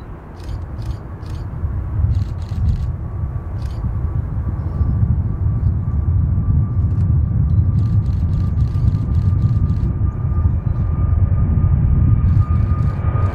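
Airbus A320-family airliner's jet engines at takeoff power during the takeoff roll and lift-off: a deep rumble that grows steadily louder, with a steady whine from the engines that strengthens near the end.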